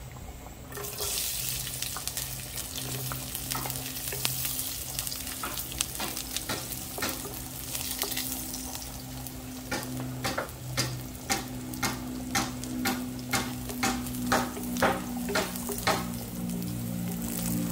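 Chopped garlic dropped into hot oil in a nonstick frying pan, sizzling from about a second in. A wooden spatula then stirs it, with regular strokes about twice a second in the second half.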